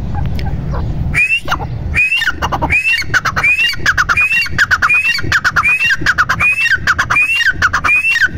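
A female grey francolin (teetar) calling: a rapid, evenly repeated phrase, each a short rising note followed by a quick run of falling notes, about ten times at roughly one and a half phrases a second, starting about a second in.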